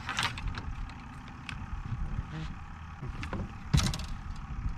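Steady low rumble around a fishing boat, with a light click near the start and a sharp knock about four seconds in.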